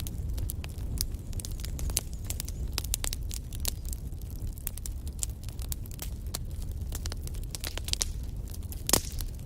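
Wood fire in a fireplace burning, with a low steady rumble and many sharp crackles and pops from the logs, one louder pop near the end.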